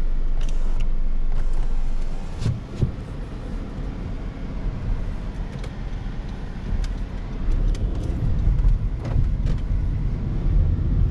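Road noise inside a moving car's cabin: a steady low rumble of engine and tyres, with a couple of sharp clicks about two and a half seconds in.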